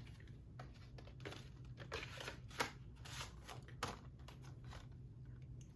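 Faint clicks and rustles of a plastic Blu-ray case and its discs and inserts being handled, with a cluster of louder scrapes and clicks in the middle.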